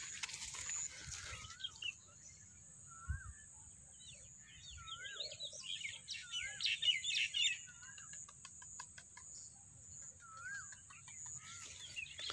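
Birds calling in open farmland: one bird repeats a short wavering whistled note every second or so, with a busier flurry of chirps midway and a quick run of ticks after it, over a steady high-pitched hiss.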